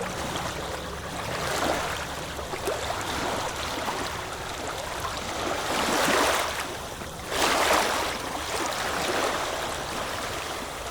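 Water rushing and splashing along a sailboat's hull under way, swelling louder a few times, with a steady low rumble underneath.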